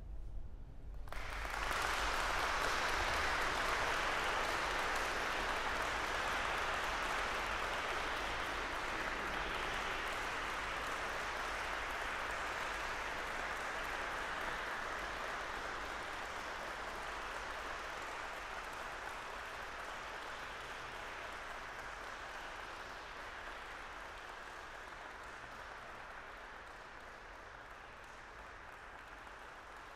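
Audience applauding in a large church, starting about a second in, swelling quickly and then slowly dying away.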